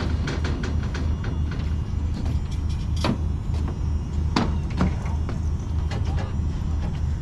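An engine running steadily at idle with a low, even throb, with scattered sharp metallic clanks and knocks over it.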